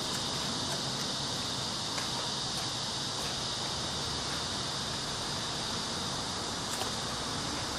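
Steady high-pitched drone of insects over a faint hiss of outdoor background noise.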